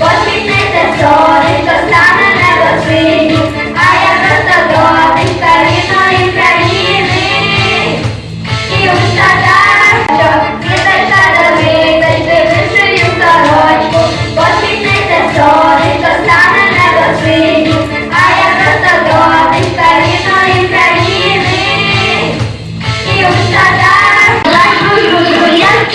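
Singing with musical accompaniment and a steady beat, in high voices that sound like children or women, dipping briefly twice.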